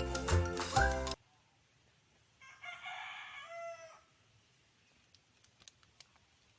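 Background music stops abruptly about a second in, and then a rooster crows once, a call of about a second and a half ending on a held lower note. A few faint clicks follow.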